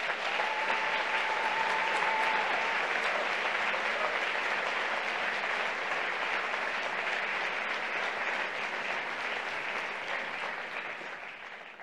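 Audience applauding: steady dense clapping that fades away near the end. A faint steady tone sounds through the first two seconds or so.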